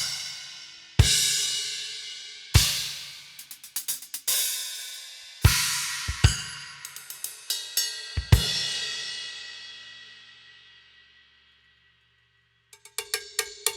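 Zildjian K Custom cymbals demonstrated one at a time: crashes, chinas and splashes struck and left to ring out, with quick light hi-hat strokes in between. Near the end a tape-muffled LP Mambo cowbell is struck several times, short and dry.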